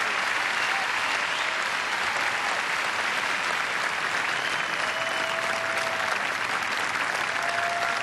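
Large arena audience applauding steadily at the end of a solo guitar performance, heard through a TV broadcast.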